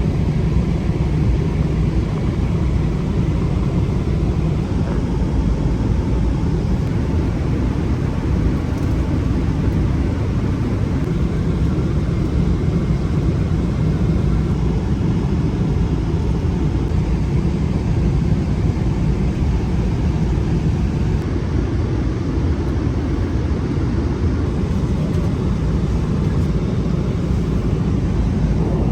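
Steady low rumble of an airliner's cabin noise, the engines and airflow heard from inside the plane.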